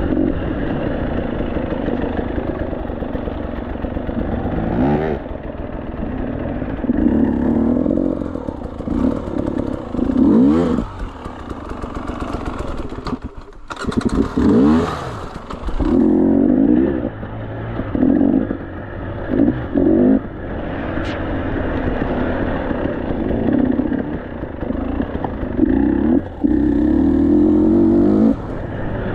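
KTM 300 two-stroke enduro engine revving in repeated throttle bursts, its pitch rising and falling as the bike climbs rocky steps. The engine drops away briefly about thirteen seconds in, then picks up again, with some clatter from the bike.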